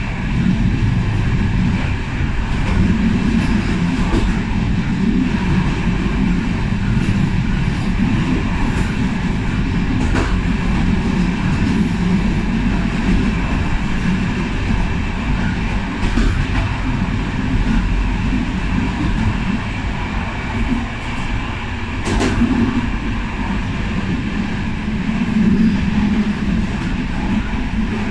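Passenger train running along the line, heard from the rear of the last coach: a steady rumble of wheels on the rails with a few sharp clicks.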